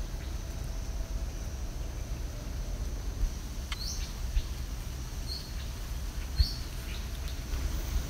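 Outdoor ambience: a low rumble of wind on the microphone with a faint steady high tone, and three or four short bird chirps from about the middle on. There is a single low bump about six seconds in.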